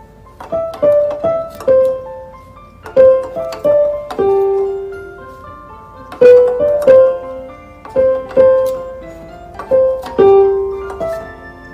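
Piano music: a slow melody of single struck notes, each ringing and fading away.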